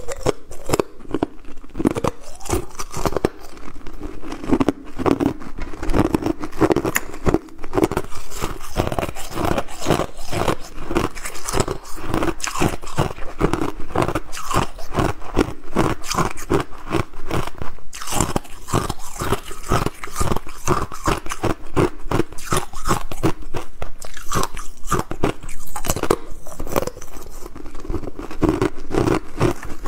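Hard, clear ice being bitten and chewed: a dense, continuous run of crunches.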